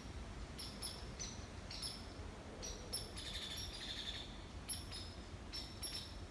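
Small birds chirping: many short, high notes repeated several times a second, over a low steady background rush.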